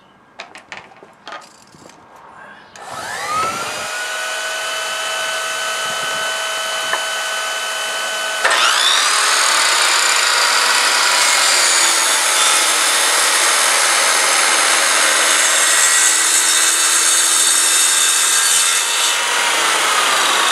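A few clicks, then a small shop vacuum switches on about three seconds in and runs steadily. About eight seconds in, a corded circular saw starts up over it and cuts through wood, and near the end the saw begins to wind down.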